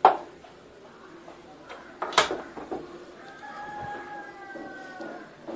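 Two sharp knocks, one at the start and a louder one about two seconds in, then a single drawn-out bird call of about two seconds that falls slightly in pitch.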